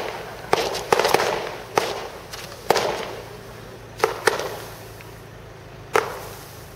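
Fireworks display: aerial shells bursting with sharp bangs, about seven in all, each fading off in an echo. The bangs come in quick succession at first, then more sparsely toward the end.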